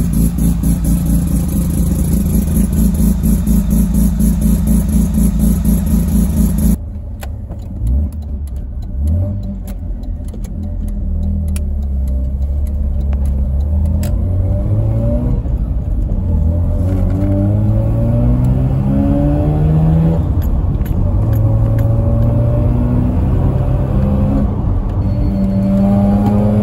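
Mazda 12A bridgeport rotary engine heard at its twin exhaust tips, idling with a choppy, rapidly pulsing note. About seven seconds in, the sound cuts to inside the car: the rotary pulls hard, its pitch climbing, dropping at each upshift, and climbing again through several gears.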